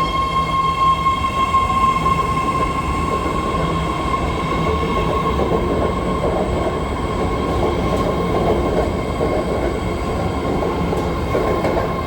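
Rapid-transit train running, heard from inside a car: a steady rumble under a high whine that holds one pitch.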